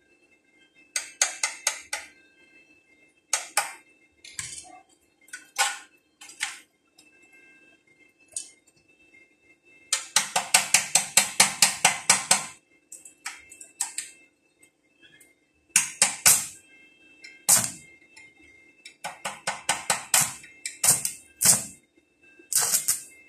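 Stick (arc) welder being struck on steel: short, irregular bursts of sharp crackling as the electrode is touched and scratched against the angle iron to start the arc. The longest is a rapid crackling run of a couple of seconds about ten seconds in.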